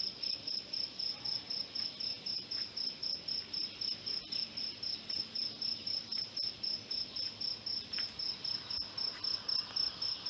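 Cricket chirping steadily in an even rhythm, about four high-pitched pulses a second.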